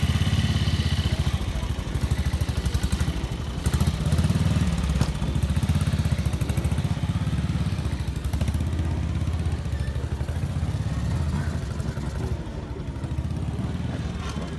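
Vintage motorcycle engine running steadily with rapid, even firing pulses, a little quieter after about twelve seconds.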